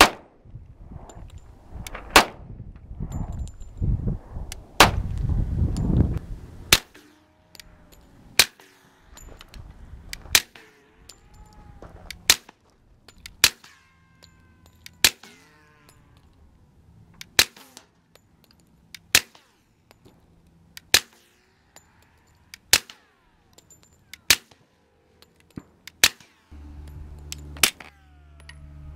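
Pistol shots fired one at a time at a steady pace, about sixteen shots roughly one to two seconds apart, with a thin ringing after several of them.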